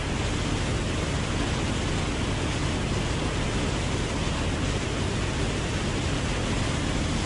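Water rushing steadily over a low concrete canal dam spillway, a constant even roar of falling white water.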